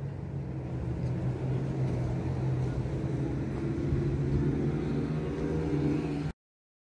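A vehicle engine running steadily, a low even hum with a higher drone growing stronger about halfway through; the sound cuts off abruptly near the end.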